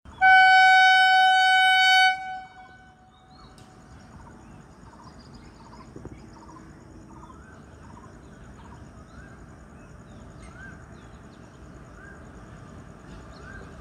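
Indian Railways electric locomotive horn sounding one long blast of about two seconds, then the low rumble of the approaching train. A faint short chirp repeats about once a second over the rumble.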